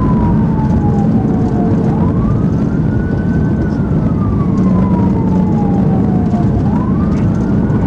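Police car siren in a slow wail. Its pitch falls, rises over about a second and a half, falls slowly again, and starts to rise once more near the end. A steady low engine and road rumble runs underneath.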